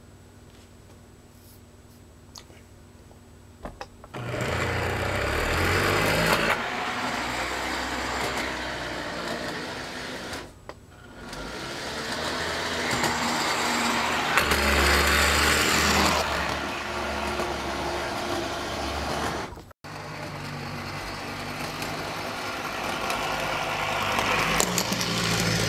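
Lionel PRR speeder model running on three-rail O-gauge track: its small electric motor and gears whirring with the wheels rolling on the rails. It starts about four seconds in, after a few faint clicks, dips briefly near the middle and runs on to the end.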